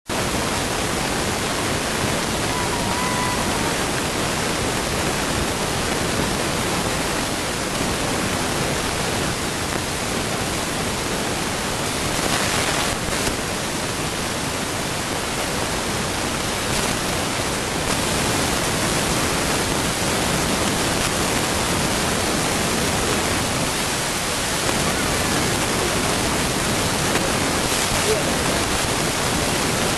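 A loud, steady hiss like static, even from low to high pitch and unchanging throughout.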